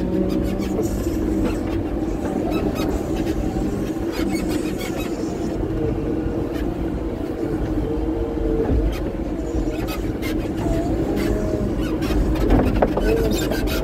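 Front-end loader's diesel engine running steadily, heard from inside the cab, with a whining tone that wavers up and down in pitch and scattered knocks, more of them near the end.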